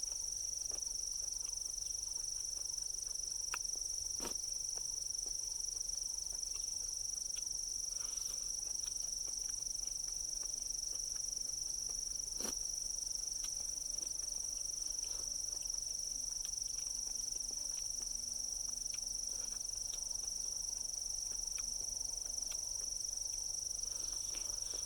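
Insects, such as crickets or cicadas, droning steadily in a continuous high-pitched chorus, with a few short clicks, the clearest about four seconds in and near the middle.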